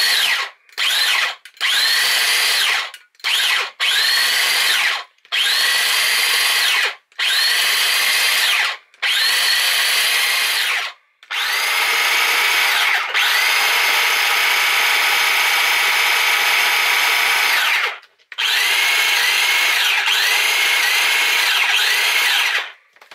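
Small electric mini chopper's motor pulsed on and off about a dozen times, short bursts at first and then longer runs of several seconds, whizzing chunks of onion, garlic and ginger into a paste. Each burst whines up in pitch as the motor gets up to speed.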